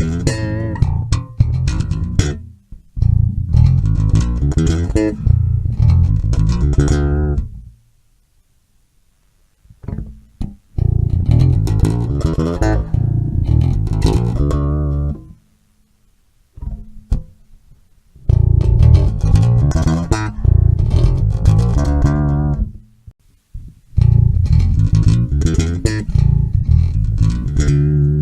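Electric bass guitar played through an Artec SE-3 bass preamp, in riffs a few seconds long with brief silences between them.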